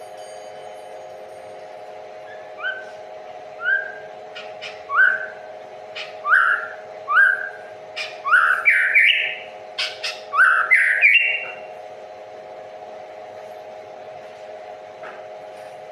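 A songbird calling: a run of short, rising whistled notes, sparse at first, then quicker and louder, stopping after several seconds. A steady hum runs underneath.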